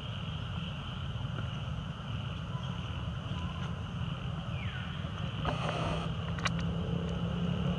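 Outdoor ambience: a steady low rumble under a constant high-pitched hum, with a short falling whistle about four and a half seconds in and a few sharp clicks a second or so later.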